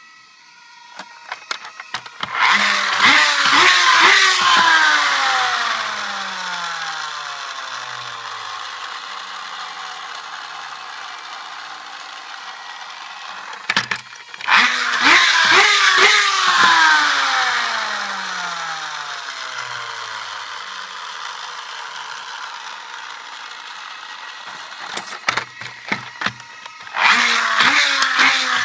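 Toy fire truck's friction motor spun up by pushing it along, then whirring and running down, its pitch falling steadily over about ten seconds. This happens three times, each time after a few clicks and rattles of the wheels being pushed.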